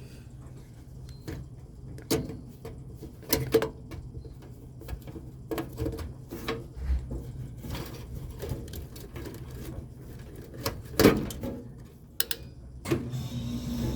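Irregular knocks and clicks from handling and movement over a steady low hum; the loudest knock comes about 11 seconds in.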